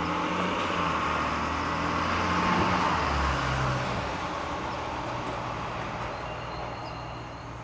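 A motor vehicle passing by, its engine and road noise swelling to a peak a couple of seconds in and then slowly fading away.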